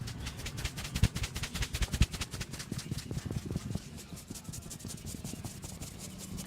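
Hands rubbing briskly over hair and scalp during a head massage: rapid rough rubbing strokes that ease off after about four seconds, with a couple of dull thumps early on.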